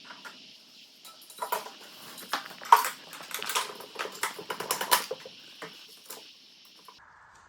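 Small metal parts clicking and clinking together in a flurry of light knocks as a greased motorcycle suspension linkage is handled and fitted.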